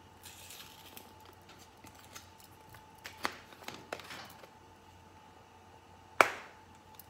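A small spice jar of cumin being worked open by hand: a few light clicks and crinkles of its cap and seal, then one sharp snap about six seconds in.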